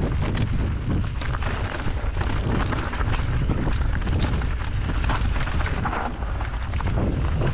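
Canyon Strive enduro mountain bike descending a rough trail at speed: a steady rumble of tyres and wind buffeting the action camera's microphone, with a constant clatter of knocks and rattles from the bike over the bumps.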